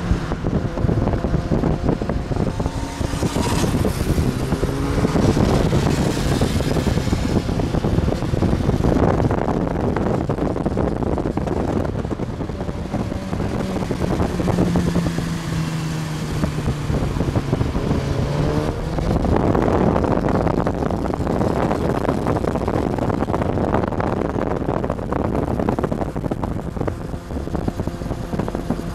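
Sportbike engines riding by, rising in pitch under acceleration a few seconds in and again past the middle, and holding a steady note in between, under rushing wind noise.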